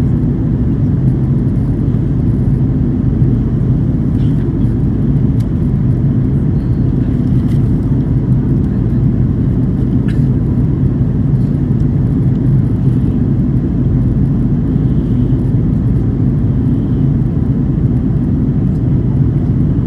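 Steady low drone of an Airbus A330-300's Rolls-Royce Trent 700 engines and rushing air, heard inside the passenger cabin as the airliner climbs after takeoff.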